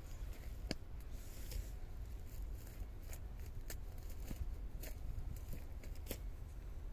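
Outdoor ambience: a steady low rumble with irregular light clicks and rustles scattered through it.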